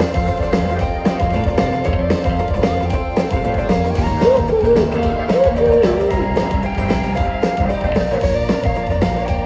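Live band playing an instrumental passage with a steady beat, with a wavering melody line about four seconds in.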